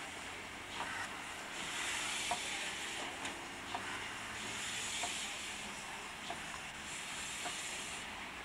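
DB class 23 steam locomotive 23 105 moving slowly, its steam hissing in long surges about every two to three seconds. Short light clicks and knocks run under the hiss.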